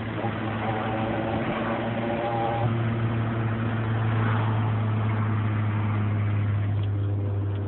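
A DSM car's engine running steadily with a low drone. A higher tone comes and goes over it in the first few seconds: the weird noise the owner is showing.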